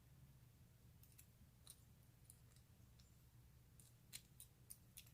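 Faint, irregular small metal clicks: an Allen wrench working a thread-locked screw out of a brass padlock body.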